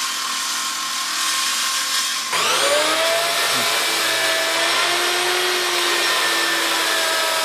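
Electric woodworking power tools. First a saw cuts wood with a high hiss. About two seconds in it changes abruptly to a motor spinning up and then running with a steady whine.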